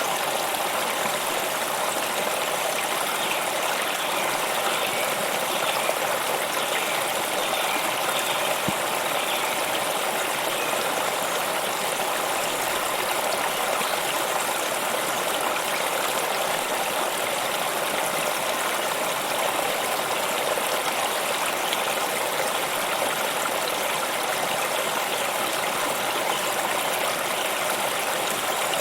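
Water flowing steadily in a stream, an even rushing and trickling that does not let up.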